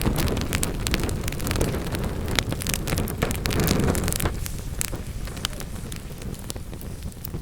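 Wood fire in a fireplace crackling and popping, with many sharp snaps over a low rumble of burning. The rumble eases off a little about four seconds in while the crackling goes on.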